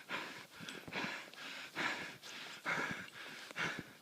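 A man breathing hard in heavy, rhythmic puffs, about one a second, winded from the exertion of snowshoe trekking through deep snow.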